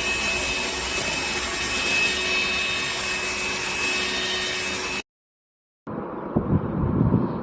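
Tefal X-Nano handstick vacuum cleaner motor running steadily, a dense rushing noise with a high whine on top, which cuts off abruptly about five seconds in. After a moment of dead silence comes a lower, uneven rumbling noise.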